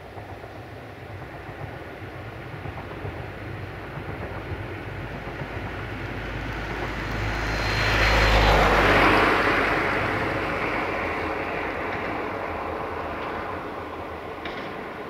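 Class VT614 diesel multiple unit passing: its diesel engine hum and the rush of the train grow louder to a peak about eight seconds in, then fade as it moves away.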